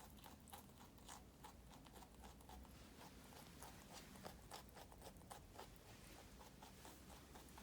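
Two rabbits chewing Romaine lettuce: a quick run of faint, crisp crunches, several a second, as they bite and grind the leaves.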